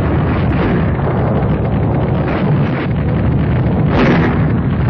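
Artillery fire and shell explosions in a continuous low rumble, with a sharper blast about four seconds in.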